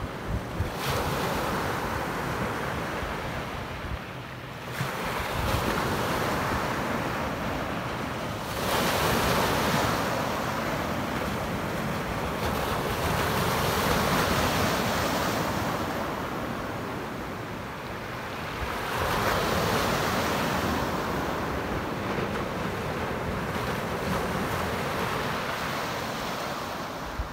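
Small waves breaking and washing up a sand-and-gravel beach, the surf swelling and ebbing every few seconds, with wind on the microphone.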